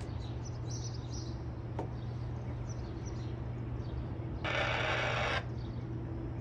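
Steady low rumble of a freight train going away, with songbirds chirping over it. A short hiss lasting about a second comes about four and a half seconds in.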